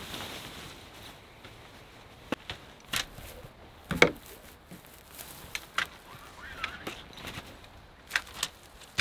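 Scattered light knocks and clicks, irregularly spaced, the loudest a single knock about four seconds in.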